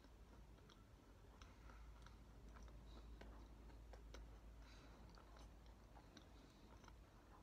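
Faint close-up chewing of a macaron, with small scattered mouth clicks.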